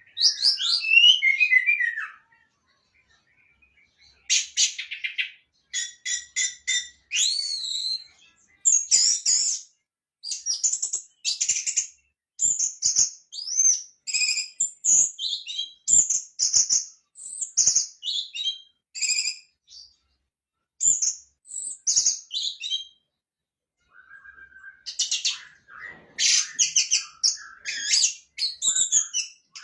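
Orange-headed thrush singing: a long run of short, varied phrases of high whistles and rapid trills, each about a second long, with brief pauses between them.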